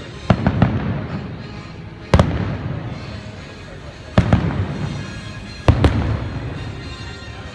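Fireworks going off: four sharp bangs, most of them in quick double reports, spaced about two seconds apart, each followed by a low rumbling echo that fades away.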